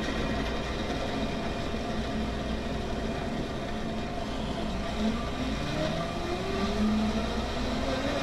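Commercial blender inside a clear sound-dampening enclosure running steadily on speed 6, blending watermelon, sugar and ice into a slush drink. About five seconds in, some of its hum tones start to rise in pitch.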